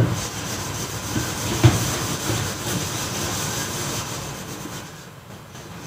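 A whiteboard duster rubbing back and forth over a whiteboard, wiping off marker writing: a steady scrubbing with two knocks in the first two seconds, trailing off about five seconds in.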